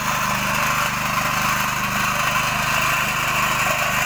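Small engine of a single-wheel walk-behind plough running steadily under load as the plough cuts a furrow through dry soil.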